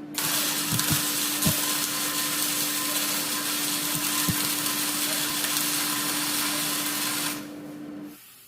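A power tool running steadily for about seven seconds, then cutting off sharply, with a steady hum lingering for a moment after.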